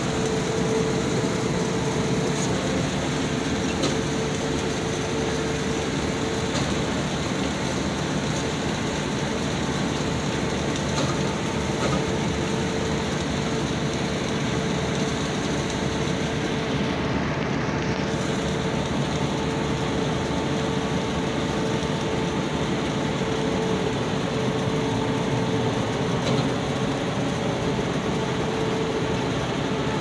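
Rice combine harvester running steadily while it cuts a standing rice crop: a constant dense machine noise with a steady hum.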